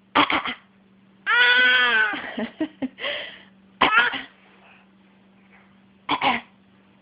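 Repeated short coughs in clusters of two or three, with one drawn-out, high-pitched vocal sound about a second in. The last pair of coughs comes near the end.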